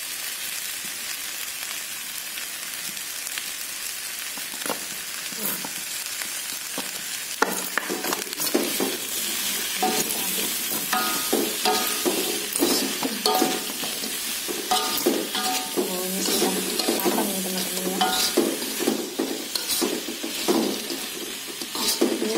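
Diced tempe, just coated in sweet soy sauce, sizzling steadily in a wok. From about seven seconds in, a metal spatula stirs it, scraping against the pan in repeated strokes with short squeaks.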